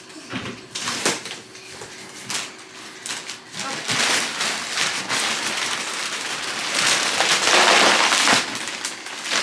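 Plastic packaging crinkling and rustling as groceries are handled and pulled out, becoming louder and continuous about four seconds in.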